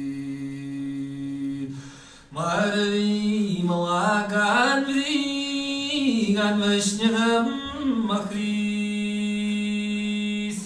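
A man singing an Irish-language song solo and unaccompanied: a long held note, a breath about two seconds in, then a slow line of held notes decorated with quick ornamental turns.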